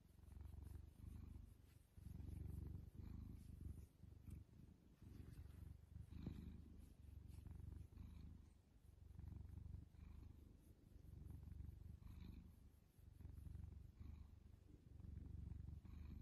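A cat purring softly while having its head scratched, the low purr swelling and easing about every one and a half to two seconds with its breathing.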